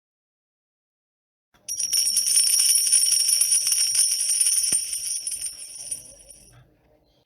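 Small bells jingling in a continuous jangle, starting about a second and a half in and fading out after about five seconds.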